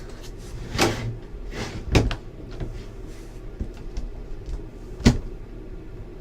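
Knocks and clicks of a trading-card box being handled and opened. There are three louder knocks, a little under a second in, at about two seconds and at about five seconds, over a steady low hum.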